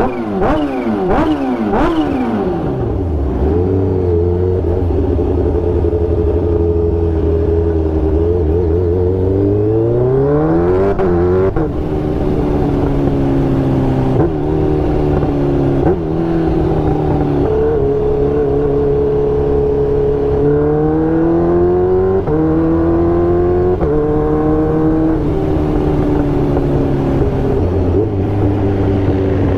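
Kawasaki Ninja H2R's supercharged inline-four engine running hard. Its pitch falls over the first few seconds, then holds steady, climbs and drops suddenly several times, as with gear shifts.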